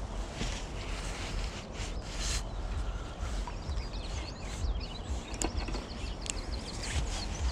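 Hands handling fishing line and a spinning rod and reel, with brushing rustles and a couple of sharp clicks in the second half, over a steady low rumble on the camera microphone. Small birds chirp in the background around the middle.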